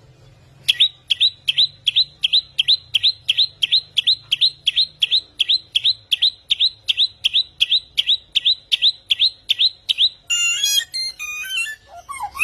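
Samyong songbird singing: a sharp, alarm-like note repeated about three times a second for some nine seconds, then a quick run of varied twittering phrases near the end.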